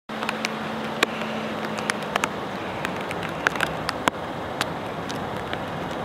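Outdoor ambience: a steady rushing noise scattered with irregular sharp ticks and clicks, a few every second, and a faint low hum in the first two seconds.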